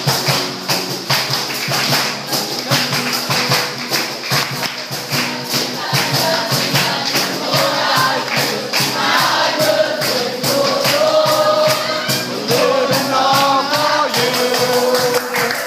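Upbeat Christian worship music with a steady fast beat and jingling percussion, and a group of voices singing along. The sung melody comes through more clearly in the second half.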